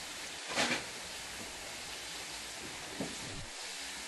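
Steady hiss of steam from a steam locomotive, with two short, louder bursts, about half a second in and again about three seconds in.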